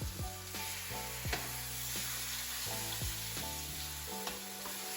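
Seasoned chicken breasts frying in hot oil in a pot, a steady sizzle, with background music and a beat underneath.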